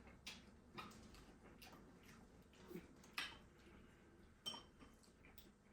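Near silence broken by about six faint, scattered clicks and taps, the sharpest about three seconds in: light knocks of chopsticks and dishes at a meal.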